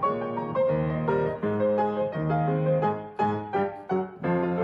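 Solo grand piano playing a brisk passage of notes and chords.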